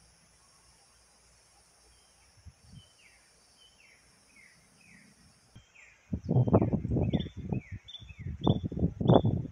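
A bird repeats short down-slurred chirps over a steady high insect hiss, which stops abruptly about halfway through. About six seconds in, gusts of wind start buffeting the microphone in loud, irregular, choppy bursts.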